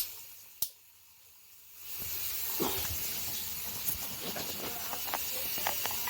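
Water running at a sink, a steady hiss with scattered small drip-like ticks. It drops out abruptly near the start, with a click, and comes back about two seconds in.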